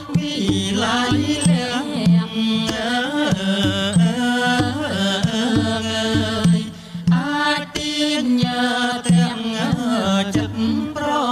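Traditional Khmer music for an Apsara dance: a melody that bends and slides in pitch over low, pitched drum strokes.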